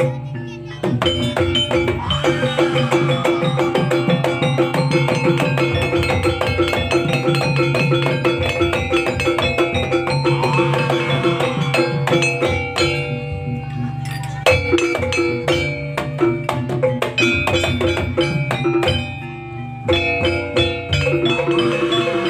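Jaranan gamelan music: drums and struck metal keyed percussion playing a fast, steady rhythm, with a few short breaks.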